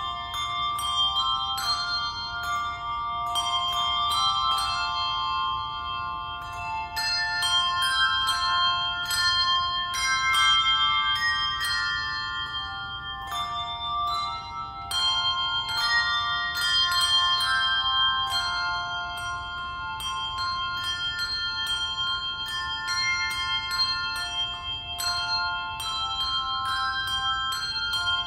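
Handbell choir ringing a piece: many bell notes struck one after another, each ringing on and overlapping with the next.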